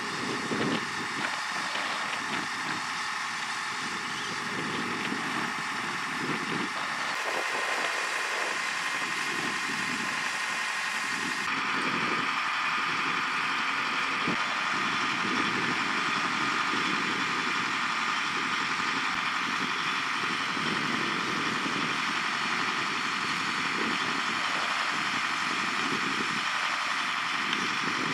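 Liebherr A 314 wheeled excavator's diesel engine running steadily at idle.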